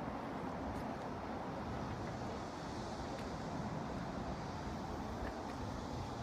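Steady low outdoor rumble of ambient noise, even throughout with no distinct events.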